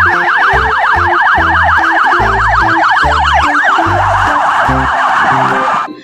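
Police car siren sounding a fast up-and-down yelp, about five sweeps a second. A little past halfway it switches to a faster, rougher warble.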